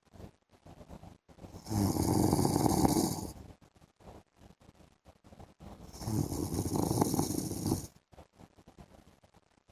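A man snoring while asleep: two long snores, each about a second and a half, roughly four seconds apart, with faint breathing in the quiet gaps between.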